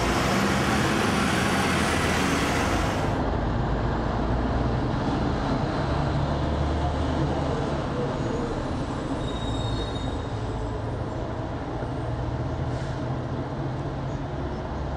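Low, steady rumble of city traffic noise with a hiss above it. The hiss drops away abruptly about three seconds in.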